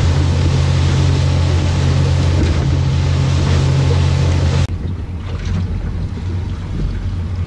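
Boat engine running steadily under way, with the rush of water and wind. About two-thirds of the way through it cuts off suddenly, leaving quieter wind and sea noise.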